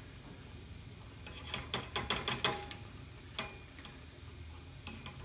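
Light metallic clicks and taps: a quick cluster about a second and a half in, then a few single ones. A wire mesh strainer basket holding steel parts is being settled into a stainless saucepan of hot parkerizing solution.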